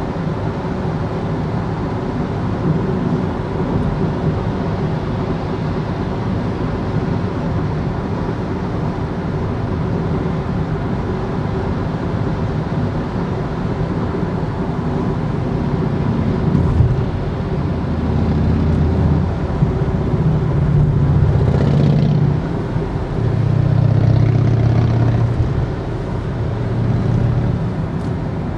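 Car driving at motorway speed, heard from inside the cabin: a steady rush of road and tyre noise with a low engine hum. The hum grows louder and shifts in pitch from about two-thirds of the way in.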